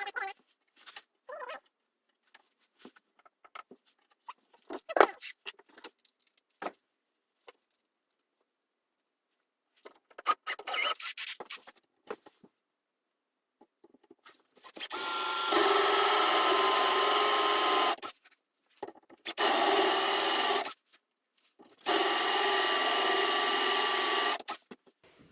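Scattered knocks and clatter of wood and tools being handled, then a handheld power tool's motor running in three steady bursts, the first and last a few seconds long and the middle one about a second.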